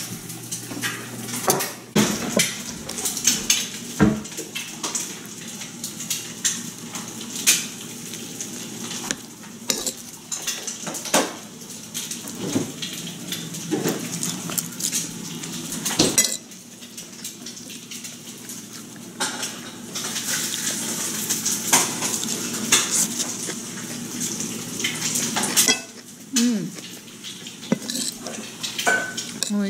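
Metal spoon clinking and scraping against a ceramic plate while scooping up fried rice, in a run of irregular sharp clicks.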